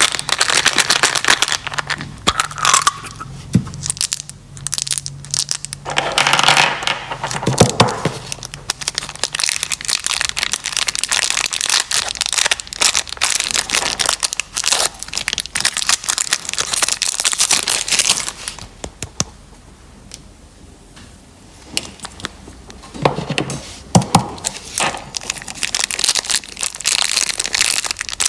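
Candy wrappers and plastic packaging crinkling and crackling as they are handled, with many fine clicks. The sound thins out for a few seconds about two-thirds of the way through, then picks up again.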